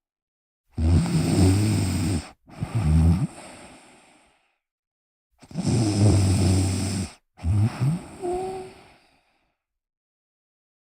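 A person snoring: two snoring breaths about four and a half seconds apart. Each is a loud low snore of about a second and a half, followed at once by a shorter one that fades away.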